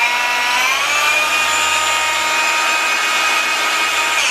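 A POPOMAN 20-volt brushless cordless 6.5-inch orbital polisher running with no load, held up in the air. Its motor whine climbs in pitch over about the first second, then holds steady. It is pretty noisy.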